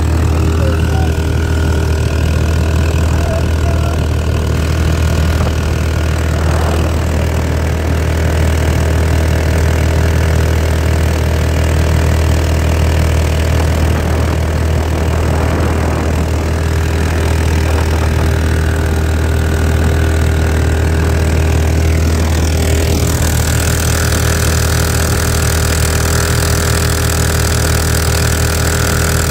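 Harbor Freight Predator 459cc single-cylinder engine mounted on a jon boat's transom, running steadily under way with a constant low drone. About 23 seconds in, a hiss of spray and wind above the engine grows louder.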